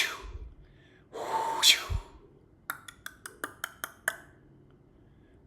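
A person's sharp, breathy exhalation with a hiss that rises in pitch, then a quick run of about nine sharp clicks over a second and a half.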